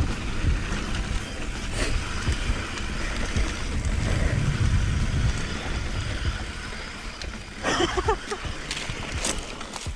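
Wind buffeting a chin-mounted action camera's microphone while a Polygon Siskiu T8 mountain bike rolls fast down a dry dirt trail, its tyres running over the dirt with scattered sharp clicks and rattles from the bike over bumps.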